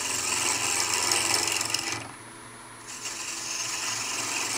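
Spindle gouge taking light cuts on a small hardwood knob spinning on a wood lathe: a steady hiss of shaving, over the lathe's low hum. The cutting stops for about a second a little past halfway, then starts again.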